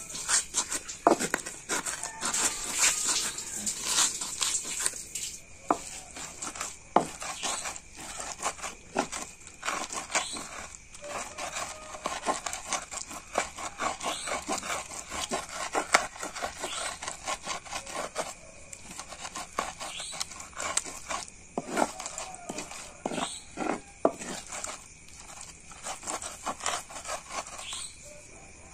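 Knife cutting garlic and other spices into small pieces on a cutting board: a run of irregular sharp taps and knocks, with short pauses between bursts.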